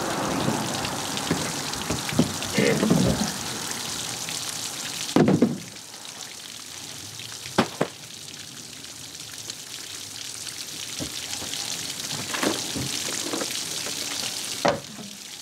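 Water running and draining in an aluminum boat hull as it is washed out, a steady hiss that drops suddenly about five seconds in. A few sharp knocks sound against the hull, the loudest about five seconds in.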